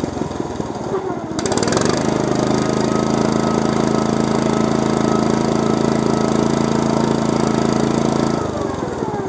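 Engine of an off-road Yazoo riding mower revving up about a second and a half in, running at steady high revs, then dropping back near the end.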